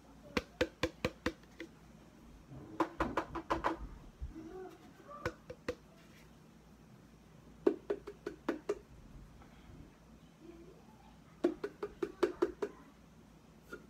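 Sharp taps on an Argo cornstarch canister, knocked against the hand to shake the powder out, coming in five quick runs of about five to eight taps each.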